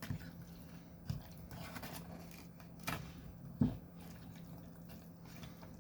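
Faint wet squishing of microwaved spaghetti carbonara being stirred, with a few short clicks of the utensil against the tray.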